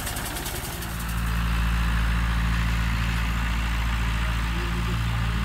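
Tractor engine running steadily close by: an even, low drone that grows louder about a second in.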